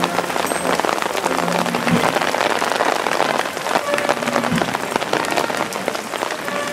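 Steady hiss of rain falling on a wet road, with fine pattering clicks. Dull low thumps come about every two and a half seconds.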